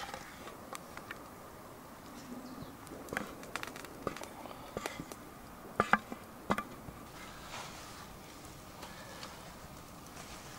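Wooden spoon scraping and knocking against a cast iron pan while baked beans are spooned into a wooden bowl: a scatter of short clicks and knocks, the loudest a few around six seconds in.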